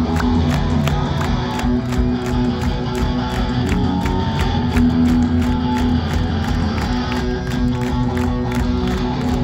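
A rock band playing live at full volume, with electric guitars over bass and steady, driving drum hits.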